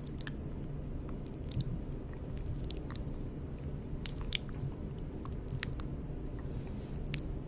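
Close-miked ASMR mouth sounds: short clicks and smacks of the lips and tongue, coming in small clusters every second or so.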